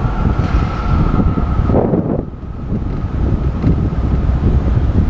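Wind buffeting the microphone of a camera on a moving bicycle, a dense low rumble with city street traffic under it. A thin steady whine runs underneath and fades out about two seconds in, when the rumble briefly drops.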